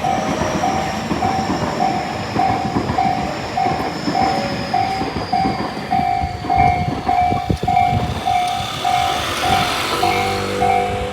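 Level-crossing electronic warning bell ringing in the slow Tōjō-type pattern, a steady ding about every 0.6 s, while a train runs over the crossing with wheel clatter and a high whine that falls in pitch. The bell stops near the end.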